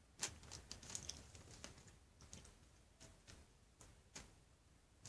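Near silence with faint, scattered soft clicks and rustles of objects being handled.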